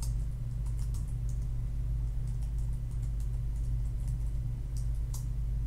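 Computer keyboard keystrokes, faint scattered clicks as text is typed, over a steady low electrical hum.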